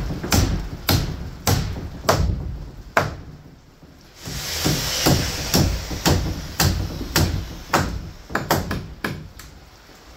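Hammer striking nails into wooden wall framing, with steady blows about two a second. The blows pause for about a second around three seconds in, then resume, with a few quicker taps near the end.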